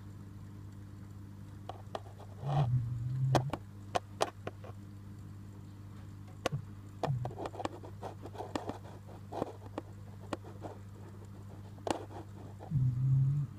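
Steady low electrical hum from aquarium equipment, with scattered sharp clicks, taps and light scraping. There are two louder, longer bumps, one about two and a half seconds in and one near the end.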